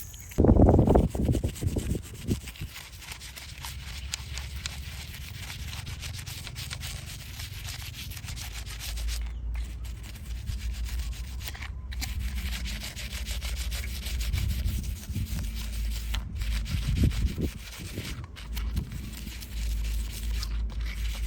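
Steady scrubbing and rubbing on the body of a small die-cast model ambulance, a dense scratchy rasp of many quick strokes. A few loud low thumps from handling sound about half a second to two seconds in.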